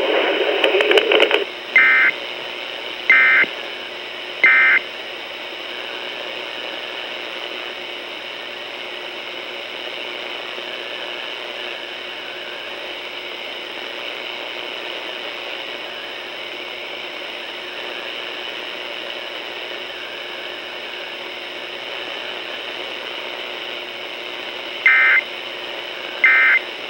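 Emergency Alert System end-of-message data bursts over AM radio: three short two-tone digital squawks about 1.3 s apart, then steady radio hiss of dead air. Near the end a second set of the same squawks starts, two of them heard.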